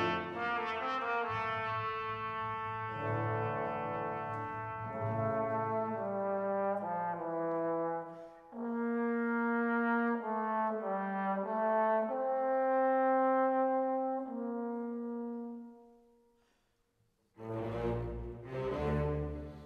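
Slow background music led by brass, moving through long held notes. It fades out about sixteen seconds in, and after a short gap a fuller passage starts near the end.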